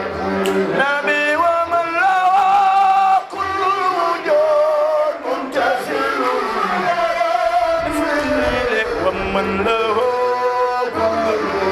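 A group of men singing an Arabic devotional ode (qasida) through microphones with no instruments, in long, wavering, ornamented held notes with several voices overlapping.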